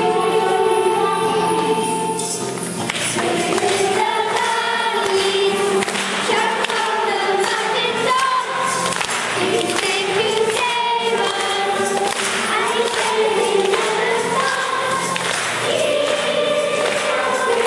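A church choir singing a hymn together, with many voices holding long sung phrases.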